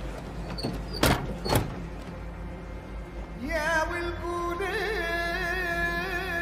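Film score: a wavering, ornamented melody line enters about three seconds in over a steady sustained drone. Before it come two sharp thuds about half a second apart, the loudest sounds.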